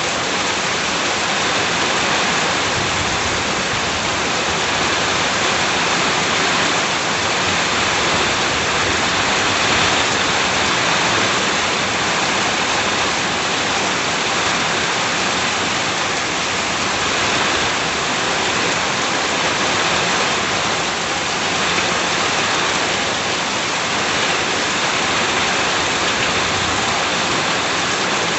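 Steady heavy rain falling on a house, a dense even hiss of drops with no let-up.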